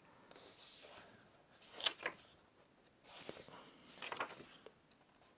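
Pages of a printed booklet being turned by hand: three soft paper rustles, about two, three and four seconds in.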